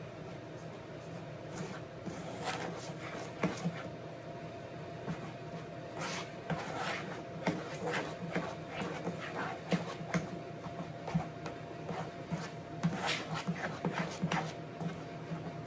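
A spoon scraping and clicking against the side of a mixing bowl as thick cornbread batter is stirred, in irregular strokes that come thickest about six seconds in and again near the end, over a steady low hum.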